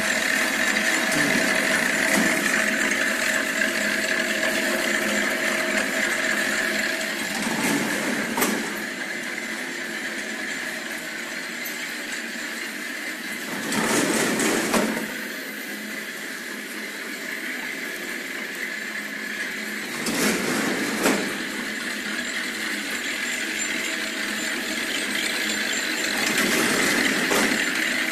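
Sugar cone baking and rolling machine running: a steady mechanical whir with a high hum, rising into a louder clatter for a second or so four times.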